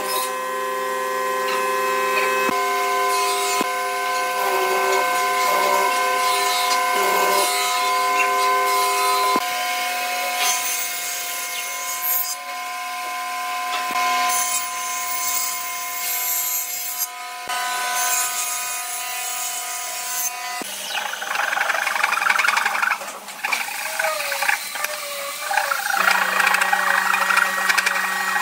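A run of woodworking machine and tool sounds. First a hollow-chisel mortiser runs with a steady motor hum while its chisel cuts into a pine rail, then a Hitachi table saw runs and cuts a piece. In the last part a hand saw rasps back and forth through wood.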